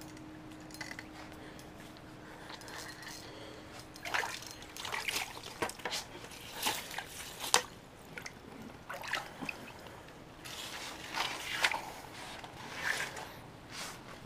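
Water splashing and sloshing in an ice-fishing hole in irregular bursts, starting about four seconds in, as a small sturgeon is landed through the ice. A faint steady hum sits under the first few seconds.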